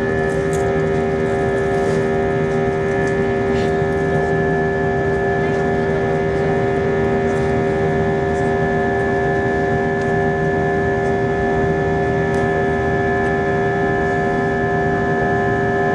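Airbus A321 airliner's jet engines and airflow heard inside the passenger cabin in flight. It is a loud, steady drone: a constant whine of several fixed tones over an even rush of air noise.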